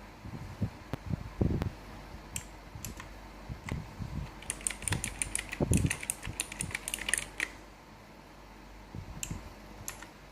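Typing on a K29 mechanical keyboard with clicky blue switches: scattered keystroke clicks, then a quick run of keystrokes from about four and a half to seven and a half seconds in, with a couple of duller knocks among them.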